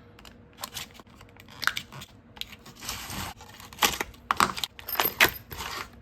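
Padlocks and their keys being unpacked from retail packaging: irregular metallic clicks and key rattles mixed with rustling, the sharpest clicks coming in the second half.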